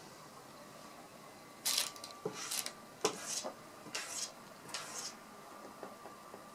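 Cat's paw scraping and swiping at a paper sheet and wooden tabletop, about five quick scratchy strokes with a few light clicks, the covering motion of a cat trying to bury food it wants rid of.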